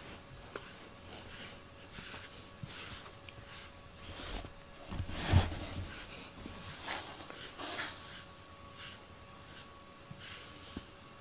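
FURminator deshedding tool raking through a cat's fur in repeated short scratchy strokes, about one to two a second, combing out loose undercoat. One louder bump about halfway through.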